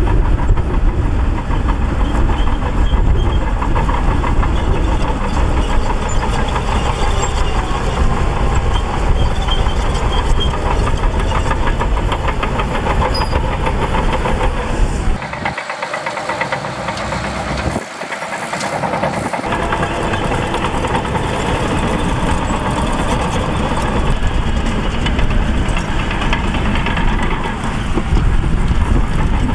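Shantui DH17C2 crawler bulldozer at work, its diesel engine running loud and steady; the deep low rumble drops away briefly about halfway through, then returns.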